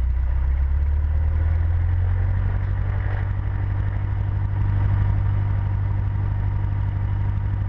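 Cessna 150's Continental O-200 four-cylinder engine running at low taxi power, heard from inside the cabin; its low drone steps up a little in pitch about a second in and then holds steady.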